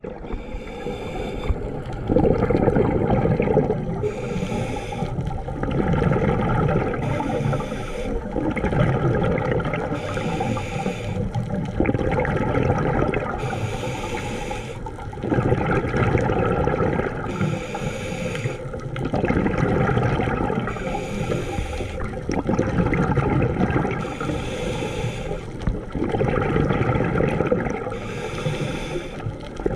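Scuba diver breathing through a regulator underwater. A hiss on each inhale alternates with a louder rumbling gurgle of exhaled bubbles, in a steady cycle every three to four seconds.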